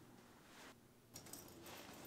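Near silence: faint room tone, with a few faint ticks a little past a second in.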